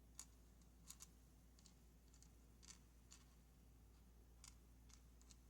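Near silence with a few faint, scattered small clicks, about eight in all, from handling the parts of a disassembled pin-tumbler lock.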